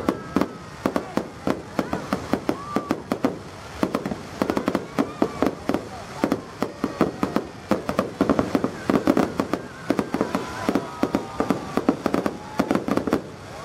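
Aerial fireworks going off: a dense, irregular stream of sharp pops and crackles from bursting shells and crackling stars, many per second and steady throughout.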